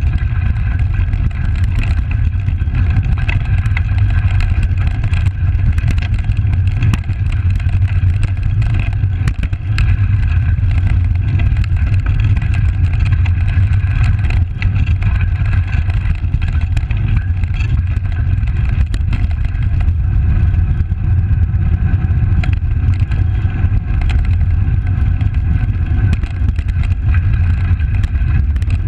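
Steady low rumble of wind and tyre vibration picked up by a handlebar-mounted camera as a Specialized Langster road bike rolls over a rough gravel and dirt trail, with scattered small clicks and rattles from the surface.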